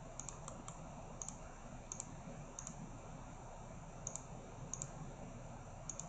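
Faint computer mouse clicks, mostly in quick pairs, coming irregularly about once a second as points are placed on a 3D model.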